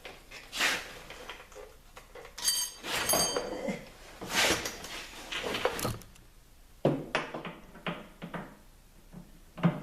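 Metal parts and tools clanking and scraping as a steel shaft is worked into a tight fit, with a couple of short metallic rings about two and a half to three seconds in and a run of sharp knocks near the end.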